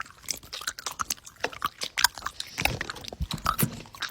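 Irregular crisp crunching and clicking, several sharp clicks a second.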